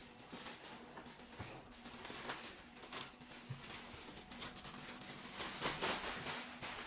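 Thin white plastic shopping bags rustling and crinkling as items are pulled out of them, with many small crackles; loudest a little before the end, as a bag is scrunched up into a ball.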